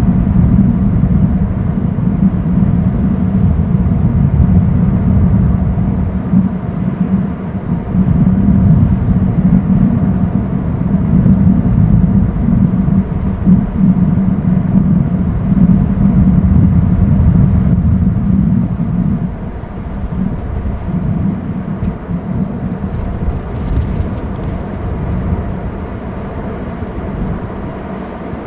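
Wind buffeting the nest-cam microphone: a loud, steady low rumble that eases somewhat about two-thirds of the way through.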